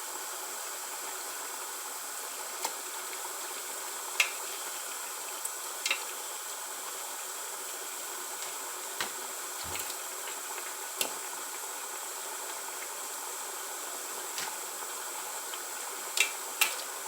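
Pot of tomato-pepper stew base cooking on the stove with a steady hiss, broken by about ten scattered light clicks and knocks as pieces of meat are added and moved in the pot.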